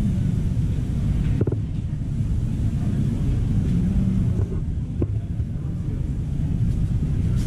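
Steady low rumble of background noise, with a couple of faint clicks.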